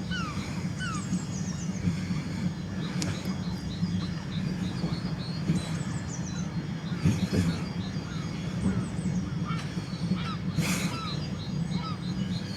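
Seagulls calling again and again in short, hooked calls, with fainter high chirps, over a steady low rumble.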